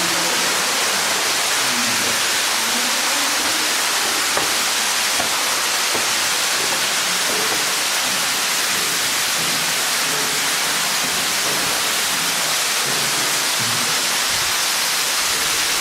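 Underground waterfall in a limestone cave: water falling and splashing with a loud, steady rush.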